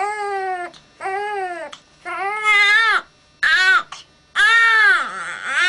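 An infant crying hard in a run of about five loud wails, each rising and falling in pitch and lasting under a second, with short breaths between.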